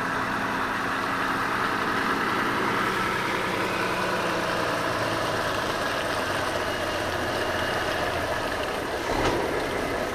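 Diesel engine of a Volvo FH semi-truck running steadily at low revs as the truck creeps slowly closer, with a brief knock about nine seconds in.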